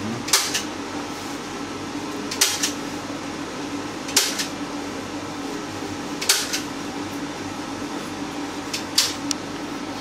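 Steel palette knife scraping thick oil paint across canvas in five short strokes, about two seconds apart, over a steady low room hum.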